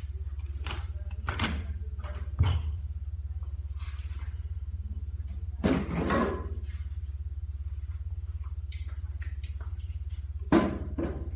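Clunks and a scrape of a 5L40E automatic transmission oil pump being handled and turned over on a bench: a few separate knocks, a longer scraping clatter about six seconds in and another knock near the end, over a steady low hum.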